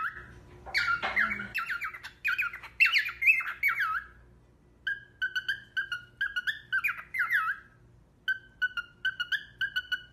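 Cockatiel chattering and singing: quick runs of short whistled chirps and warbles in phrases, with brief pauses about four seconds in and again near eight seconds.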